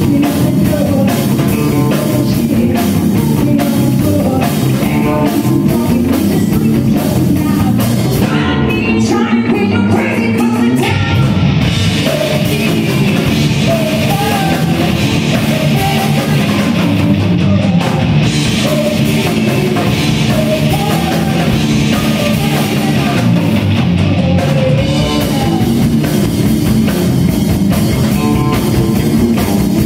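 Live rock band playing: electric guitar, bass guitar and drum kit, with a woman singing.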